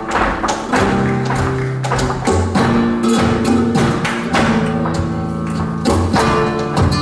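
Live flamenco music in the alegrías style: guitar playing with hand-clapping (palmas) and the dancers' shoes striking the stage in rapid footwork.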